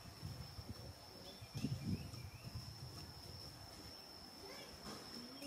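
Insects droning in one steady high-pitched tone, with a few low knocks and rustles about two seconds in and faint short chirps.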